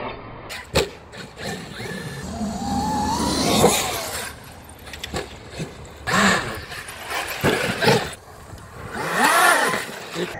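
Electric radio-controlled truck being driven: its motor whine climbs in pitch about three seconds in, with scattered knocks and rattles from the truck, and the whine rises and falls again near the end.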